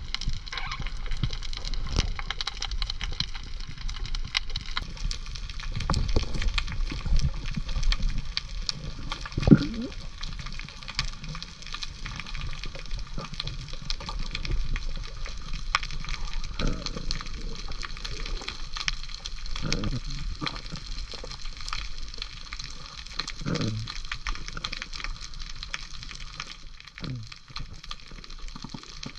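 Underwater reef ambience: a dense, steady crackle of sharp clicks over a low rumble of water, with a few short muffled sounds through it.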